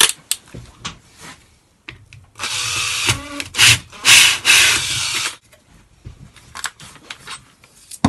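Power drill spinning a Bosch Progressor hole saw as it cuts through 5 mm hardboard. The cut starts about two seconds in and runs for about three seconds. After it stops there are a few light handling clicks.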